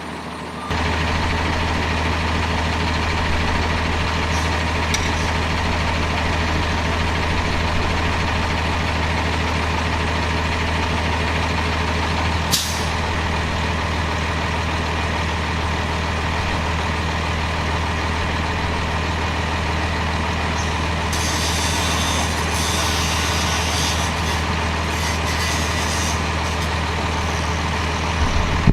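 An engine running steadily at a constant speed, a low even drone that cuts in suddenly near the start. There is a sharp click about twelve seconds in and a stretch of high hissing rustle a few seconds past twenty.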